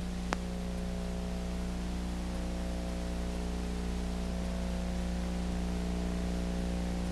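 Steady electrical hum with hiss from an old video recording, with one sharp click shortly after the start.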